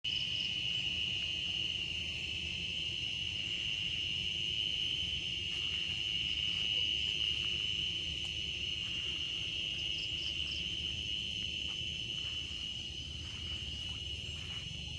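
Steady, unbroken high-pitched insect chorus holding one tone with fainter overtones, over a low background rumble.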